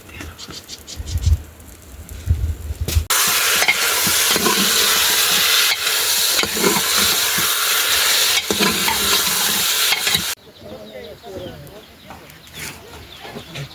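Food sizzling in a frying pan: a loud, steady sizzle starts suddenly about three seconds in and cuts off sharply about ten seconds in.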